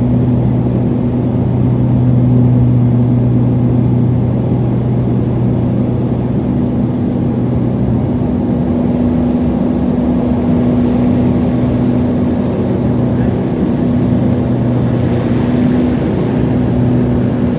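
Harbin Y-12E twin-turboprop's engines and propellers droning steadily, heard from inside the cabin on final approach to landing. A hiss builds in the last few seconds as the aircraft comes down onto the runway.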